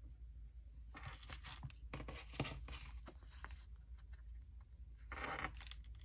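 Paper sticker sheets rustling and crinkling, with small clicks and taps as stickers are peeled off with metal tweezers and pressed into a planner. A slightly louder rustle comes about five seconds in.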